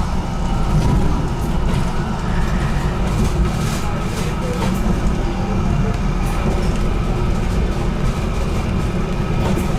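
HTM GTL8 articulated tram running on its rails, heard from inside: a steady low rumble with faint whining tones and scattered light clicks.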